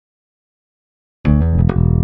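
Dyna KUSABI-II five-string electric bass. Silence for just over a second, then the bass comes back in with a quick run of plucked notes.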